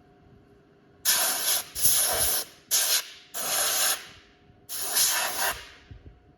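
Compressed-air blow gun from an air compressor, fired in five short blasts of loud hiss as dust is blown out of a graphics card.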